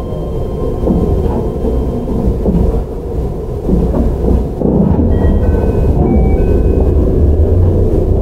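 Interior running sound of a Keihan 13000 series electric commuter train. A steady heavy rumble of wheels on rail carries faint whining tones from its Toyo IGBT VVVF inverter and traction motors. A few short high tones step about around the middle.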